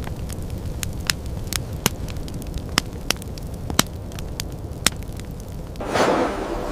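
Hearth fire crackling: irregular sharp pops over a steady low rumble. A whoosh swells up near the end.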